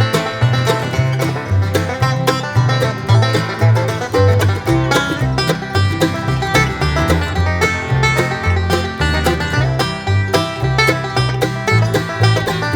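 Background music with quick plucked-string notes over a stepping bass line.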